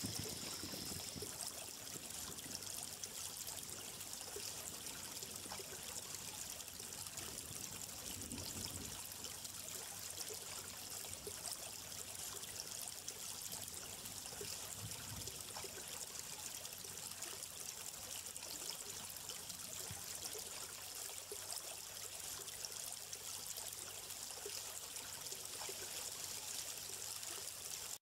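A small stream trickling steadily.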